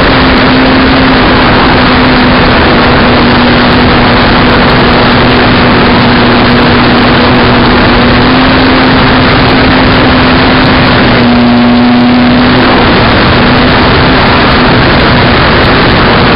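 Onboard sound of a small model aircraft in flight: a steady motor-and-propeller hum under loud, heavy wind rush on the camera's microphone. The hum dips slightly in pitch for a moment about eleven seconds in.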